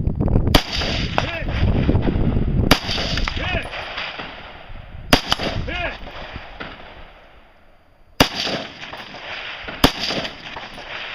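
Five rifle shots fired at a deliberate pace, two to three seconds apart, each sharp crack followed by a long echo.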